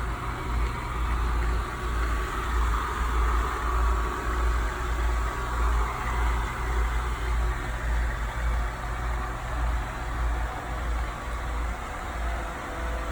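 Kobot RV351 robot vacuum running as it cleans the floor: a steady motor and suction hum over an uneven low rumble.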